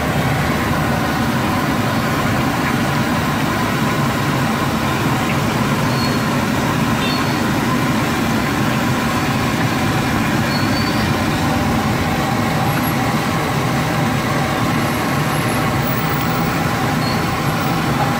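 Steady roar of a gas burner under a wok of deep-frying oil, with the oil sizzling.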